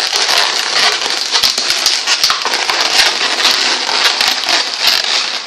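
Latex twisting balloons rubbing and squeaking against each other as a white 5-inch round balloon is twisted onto a black balloon figure: a dense, continuous run of small squeaks and crackles.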